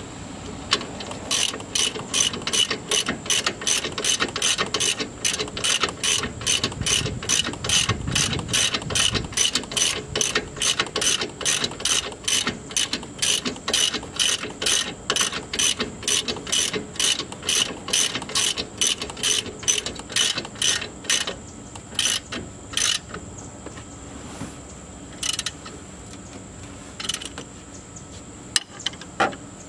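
Hand socket ratchet wrench clicking as it is swung back and forth, working a nut on the shock collar. It clicks about three times a second for some twenty seconds, then only now and then.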